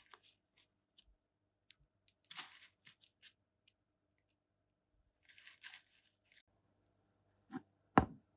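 Slime being worked by hand as cream is mixed into it: scattered small clicks and pops, two short bursts of crackling squish, and one sharp, louder knock near the end.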